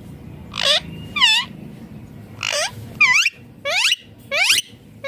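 A green parakeet calling: about six short, harsh screeching calls, each a quick sweep in pitch. There is a pause after the first two, and the later calls rise sharply in pitch.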